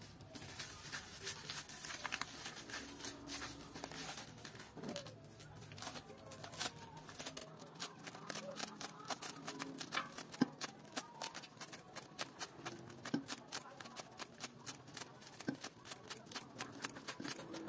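Scissors snipping fresh leaves into a steel pot: quick repeated cuts, several a second, that come faster after the first few seconds, as the leaves are chopped fine for a dye bath.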